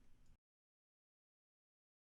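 Near silence: faint room tone that cuts off to dead digital silence within the first half second.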